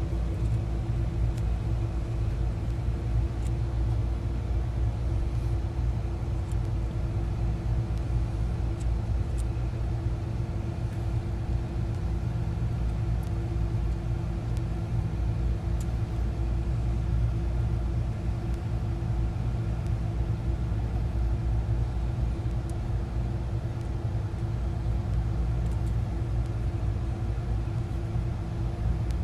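Steady low machinery hum and rumble with a constant mid-pitched tone, running unchanged throughout.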